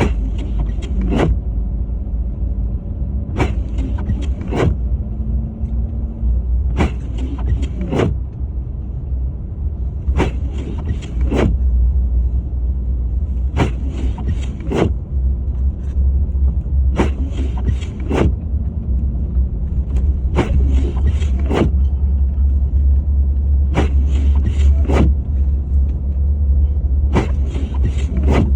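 Car windshield wipers sweeping across the glass, a pair of strokes (out and back) about every three and a half seconds, over the steady low rumble of the car driving.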